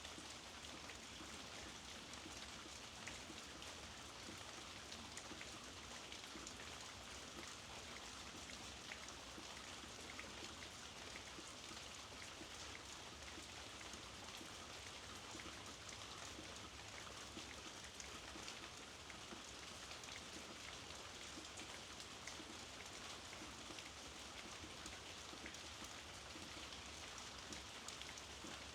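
Steady rainfall with many small drops ticking on a surface, an even hiss without pause.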